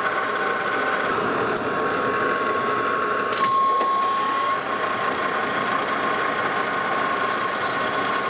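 Metal lathe running steadily with a constant hum, turning a plastic blank while the tool hollows out its centre. A faint higher hiss comes in near the end.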